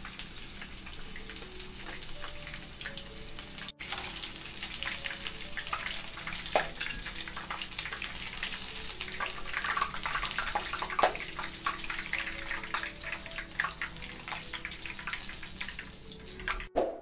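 Battered shrimp deep-frying in hot oil in a pan: a steady sizzle full of crackles and pops, breaking off briefly about four seconds in.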